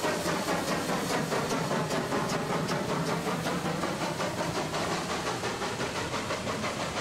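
Class 70 steam tank locomotive working past with its train: a quick, even beat of exhaust chuffs over a steady hiss of steam blowing from around the cylinders.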